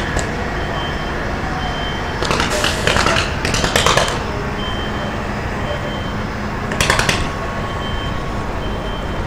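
Steady drone of fire engines running at the scene, with clusters of short, sharp noise bursts about two to four seconds in and again near seven seconds.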